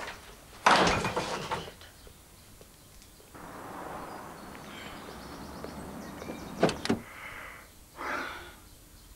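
A door banging about a second in, then a sharp clunk just before seven seconds and a shorter thud about eight seconds in.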